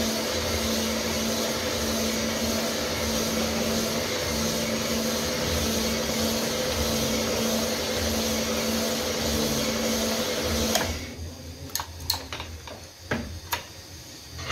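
Cylinder honing machine running steadily with a fixed hum as its hone polishes a tractor engine block's cylinder liner; it is switched off about eleven seconds in and stops abruptly. A few sharp metal clicks and knocks follow as the hone and block are handled.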